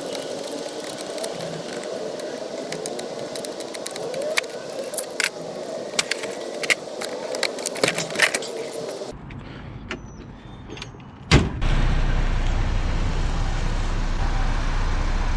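Irregular sharp clicks and metallic clinks over a noisy background for about nine seconds. Then a single hard knock like a car door shutting about 11 seconds in, followed by the steady low rumble of a car running.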